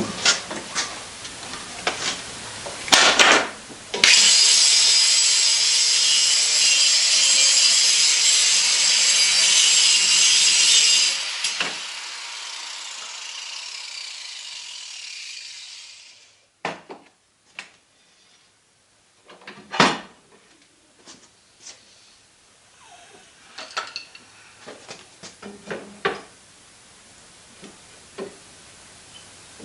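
A power tool working metal: a loud rasping hiss for about seven seconds that cuts off abruptly, then a softer hiss that fades away over several seconds, with scattered clicks and knocks before and after.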